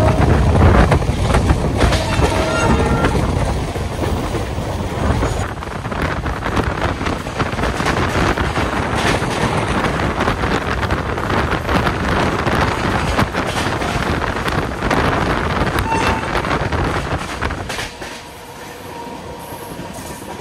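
Passenger train running at speed, heard from the coach doorway: a steady rumble and rattle of wheels on rail with wind, which drops noticeably near the end.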